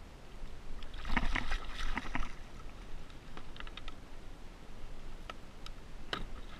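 Knocking and clattering of gear on a fishing kayak, loudest in a short cluster about a second in, followed by a few scattered single clicks over a faint low rumble of water and wind.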